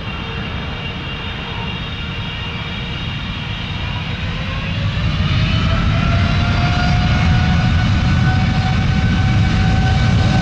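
Jet airliner's engines spooling up: a whine that slowly rises in pitch over a heavy low rumble, growing louder about five seconds in and then holding steady.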